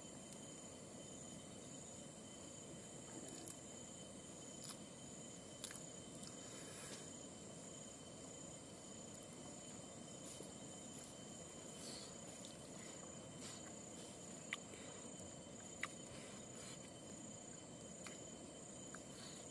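Steady high-pitched drone of insects in the vegetation, with a few short sharp clicks, two of them standing out in the second half.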